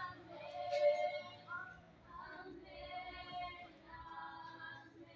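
A high singing voice carrying a slow melody in sustained notes, with music behind it.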